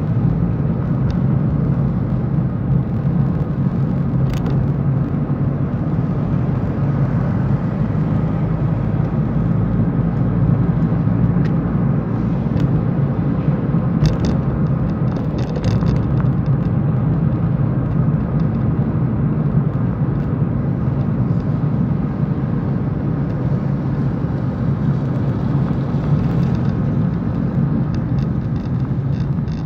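Steady low rumble of a car driving on a wet road, engine and tyre noise heard from inside the cabin, with a few short clicks about four seconds in and again around the middle.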